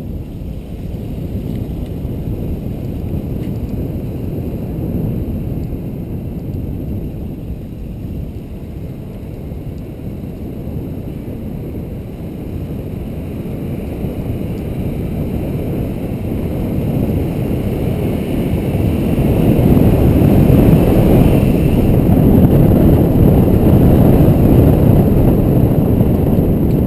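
Driving noise picked up by a camera mounted on the outside of a car: wind rushing over the microphone with the car's road and engine rumble underneath. The rumble is steady and grows louder about two-thirds of the way through.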